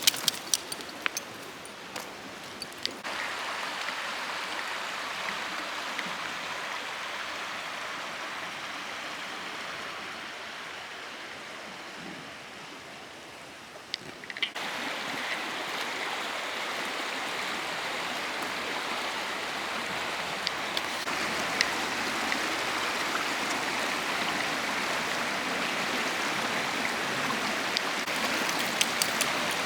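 Shallow creek water running over a rock slab, a steady rushing hiss that jumps louder about three seconds in and again about halfway through.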